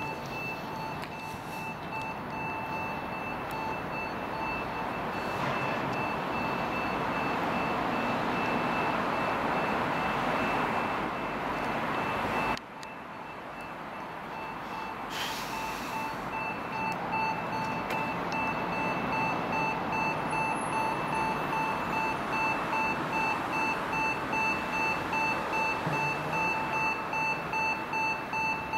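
Electronic beeper sounding a steady pulsed beep, two pitches together about twice a second. Under it a rushing noise swells over the first dozen seconds and cuts off abruptly.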